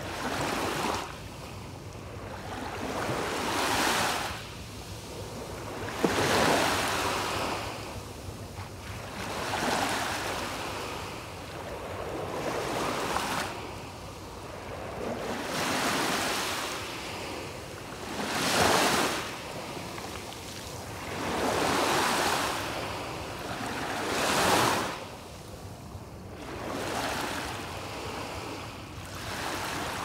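Small waves breaking and washing up a sandy beach, a fresh surge of surf about every three seconds, each one swelling and then fading.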